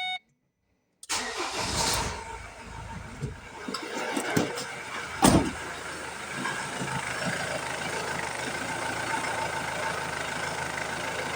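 Ford Transit MK7 engine being restarted after stalling: it starts about a second in and runs unevenly at first, with a sharp thump about five seconds in, then settles to a steady idle. This is a van that will not hold idle once warm and shuts down after some seconds.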